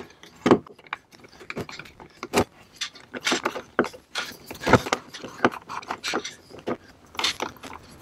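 Small metal parts clicking, scraping and rattling in irregular bursts as a screw is turned out of a molly-bolt setting tool by hand with a screwdriver, freeing the tool from the newly set anchor.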